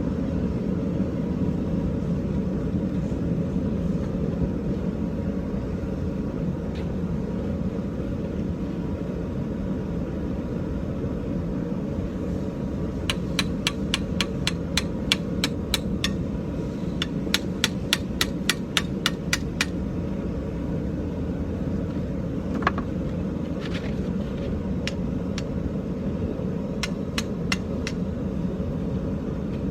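Forging hammer striking hot iron on an anvil in quick runs of about three blows a second, from about 13 to 20 seconds in, then a few single blows, as the flattened end of the iron rod is split and worked into fork tines. A steady low rumble runs underneath.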